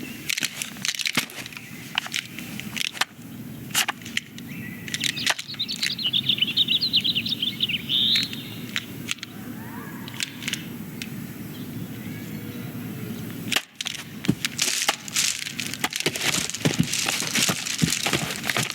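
Animated-film sound effects: a run of light clicks, taps and knocks over a steady low room hum. A fluttering, chirping high trill lasts a few seconds about five seconds in. The clicks come thicker in the last few seconds.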